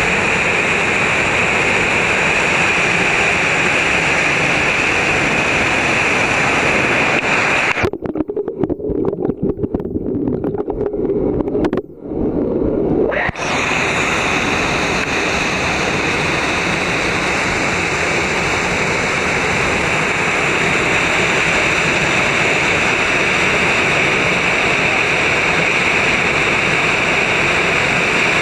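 Mountain waterfall rushing steadily and loudly over rock. About eight seconds in the sound turns dull and muffled for some five seconds, then comes back full.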